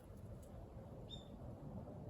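Faint outdoor background rumble with a single short, high bird chirp about halfway through.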